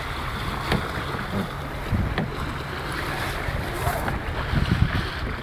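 Wind buffeting the microphone over water rushing along the hull of a sailing yacht under way.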